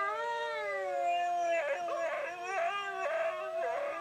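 Dogs 'talking' to each other on a played-back video: long, drawn-out vocalizations that glide up and down in pitch, following one another with only a few short breaks around the middle.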